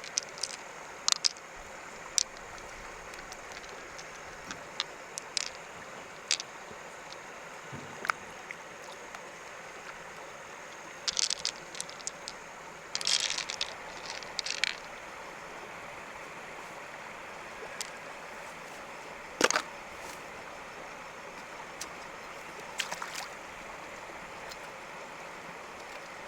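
Steady rush of flowing stream water, broken now and then by short clicks and clattering bursts, the loudest about nineteen seconds in.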